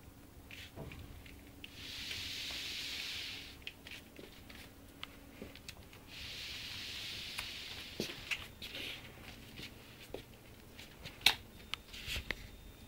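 Small puppies play-wrestling in a plush pet bed: soft rustling and scuffing of the bedding with scattered light clicks and one sharper click near the end. Two soft hissing stretches, each about a second and a half long, come about two seconds in and again about six seconds in.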